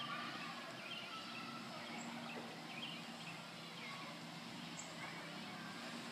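Faint outdoor ambience: a steady low hum with a few scattered faint chirps.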